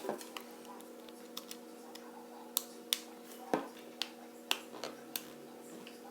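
Irregular small sharp clicks, about a dozen, as a Phillips screwdriver works at a tight screw in a smartphone's plastic housing. A faint steady hum runs underneath.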